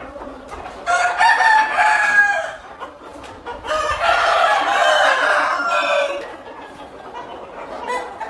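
Caged game roosters of the aseel/shamo type crowing: two long crows, the first about a second in and the second, longer one about four seconds in.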